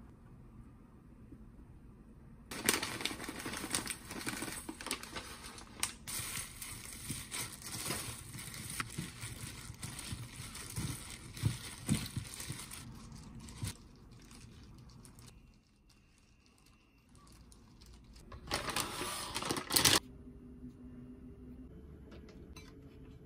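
Thin disposable plastic gloves crinkling and rustling as gloved hands mix rice with canned tuna and mayonnaise in a stainless steel bowl. The crinkling runs for about ten seconds, then stops. After a quieter stretch, another short burst of rustling comes near the end.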